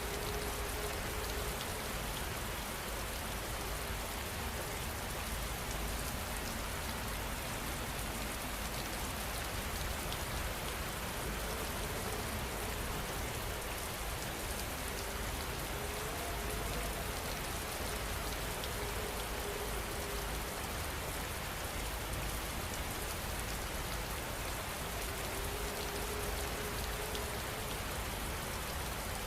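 Steady heavy rain falling, an even hiss that holds at one level without let-up.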